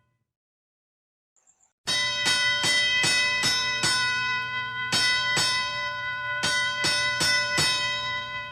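Boxing ring bell struck rapidly over and over in three quick bursts, each strike ringing on, starting after nearly two seconds of silence and ringing out near the end.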